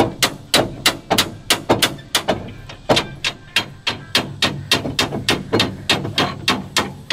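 Rapid, even metallic knocking, about three or four knocks a second, each with a short ring, from working a seized hydraulic control valve on an old Drott excavator to free it up.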